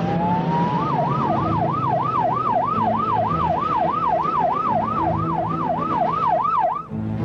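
Police siren winding up, then yelping in a fast rise and fall, about three cycles a second, and cutting off near the end. Low, steady background music runs underneath.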